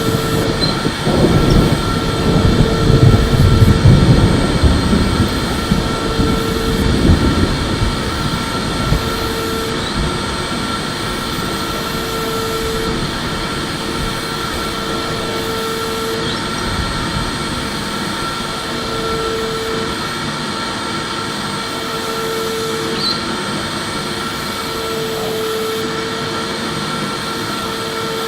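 Electric vacuum cleaner running steadily: an even rush of air with a constant motor whine. A louder low rumble swells during roughly the first eight seconds and then settles, and a short mid-pitched hum recurs about every one to two seconds.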